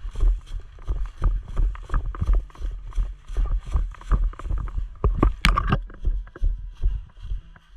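Quick footsteps of an airsoft player moving across the field, about three thuds a second, with gear rattling on each step. A louder, sharper clatter comes about five seconds in.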